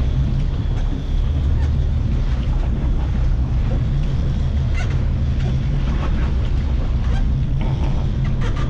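Steady low rumble of the boat's engines mixed with wind on the microphone, with a few faint clicks in the second half.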